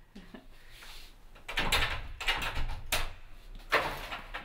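An apartment door being opened: a few knocks and clicks from the lock and handle, with handling rustle between them.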